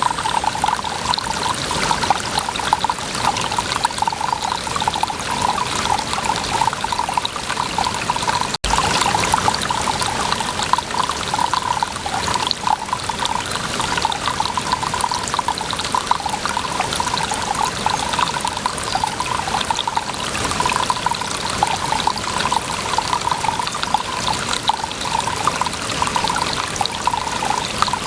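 Water pouring and trickling steadily, with one very brief cut-out about a third of the way in.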